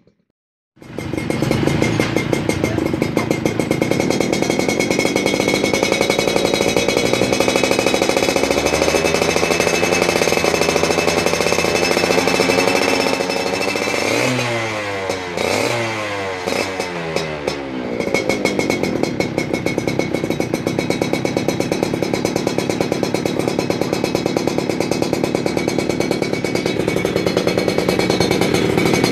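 Yamaha F1ZR's single-cylinder two-stroke engine running through an SMR Jogja racing exhaust, starting abruptly about a second in with a fast, rattling idle. A little past the middle the pitch swings up and down several times as the throttle is worked, then it settles back to a steady idle.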